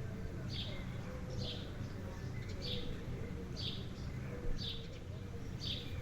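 A bird repeating a short, high chirp about once a second, over a steady low background rumble.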